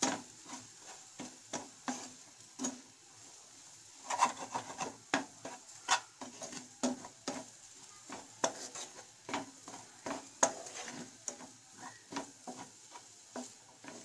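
A spatula scraping and knocking against a non-stick frying pan as scrambled eggs are stirred, in short irregular strokes about one to three a second. The eggs sizzle faintly underneath.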